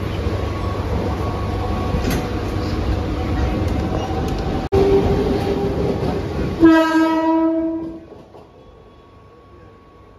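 Mumbai suburban local electric train running past with steady wheel-on-rail noise, then one horn blast about six and a half seconds in, lasting just over a second. The rail noise falls away once the train has gone.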